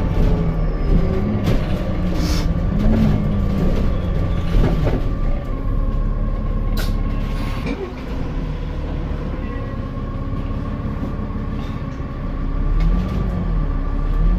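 Alexander Dennis Enviro400 MMC double-decker bus engine running, with a steady high whine over a low drone. A lower note rises and falls a few times, around two to three seconds in and again near the end.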